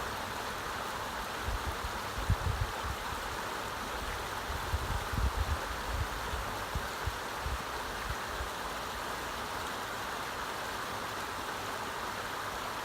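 A creek with a strong current, running as a steady, even rushing of water. A few low thumps come in the first half.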